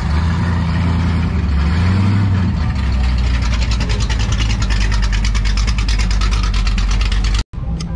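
Engine of a classic 1950s car running low and steady as it drives slowly past close by, with a quick, even pulsing from the exhaust in the second half. The sound drops out abruptly near the end.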